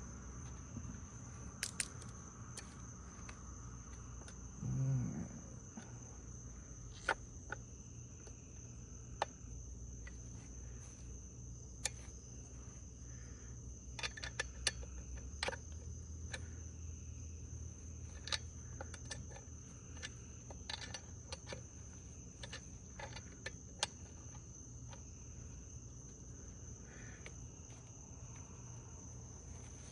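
A steady high insect trill runs throughout, over scattered sharp clicks and small knocks from chainsaw parts and tools being handled during assembly. A brief low sound comes about five seconds in.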